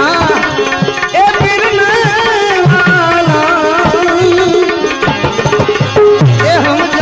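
Instrumental interlude of a Gujarati bhajan: tabla keeping a steady beat under a melodic instrument playing a wavering, ornamented tune.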